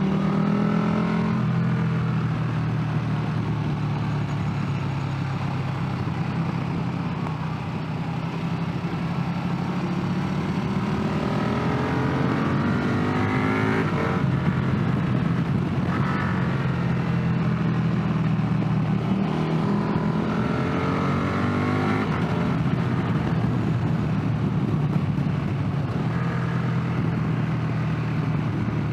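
Motorcycle engine under way, accelerating several times, its pitch rising and dropping back as it shifts up through the gears, over steady rushing wind and road noise.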